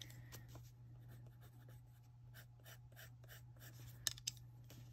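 Faint scratching of a coloured pencil on paper in short strokes, with two light clicks near the end.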